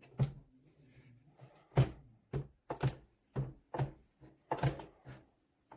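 A series of dull thumps or knocks at an uneven pace of about one to two a second.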